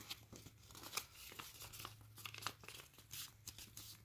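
A sheet of origami paper rustling and crinkling as hands fold it in half and crease it, in many small, crisp ticks. A faint steady low hum runs underneath.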